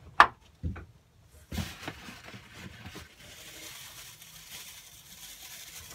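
A sharp knock just after the start, then from about a second and a half in, plastic packing rustling and crinkling as it is handled inside a cardboard box.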